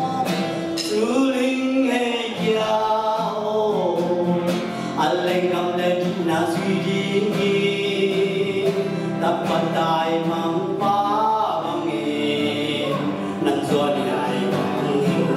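A man singing a worship song into a microphone, accompanying himself on a strummed acoustic guitar.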